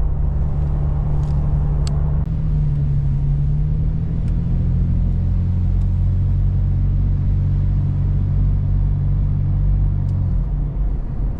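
Toyota FJ Cruiser's 4.0-litre V6 and road noise while driving: a steady low engine drone whose note shifts a couple of times and eases off near the end.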